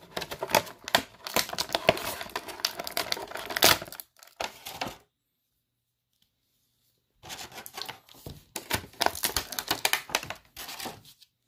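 Stiff clear plastic clamshell packaging crinkling and clicking as an action figure and its accessories are worked out of it by hand: rapid, dense crackles and clicks in two stretches, broken by about two seconds of silence in the middle.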